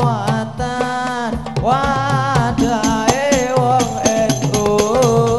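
Hadroh devotional music: a voice sings a gliding, ornamented melody through a microphone over a fast, steady beat of hand-struck frame drums (rebana).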